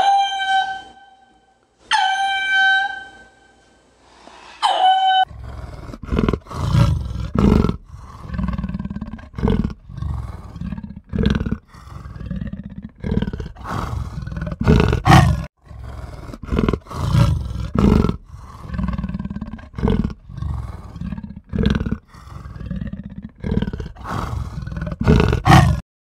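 Three short, high calls with a clear pitch in the first five seconds. Then a big cat growls in a long series of rough, low bursts, about one a second.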